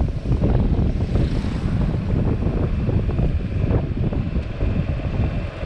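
Wind buffeting a helmet-mounted camera microphone on a moving scooter: a heavy, fluttering low rumble of rushing air.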